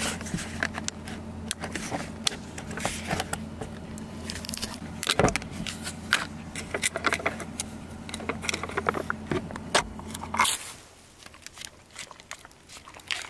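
Clicks, scrapes and crinkles from opening and handling a plastic tub of coconut-milk yogurt, over a low steady hum that stops about ten and a half seconds in.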